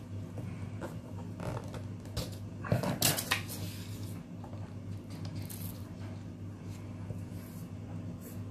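Sheet of paper being shifted and pencil scratching on paper, in short irregular strokes with a louder cluster of scrapes about three seconds in, over a steady low hum.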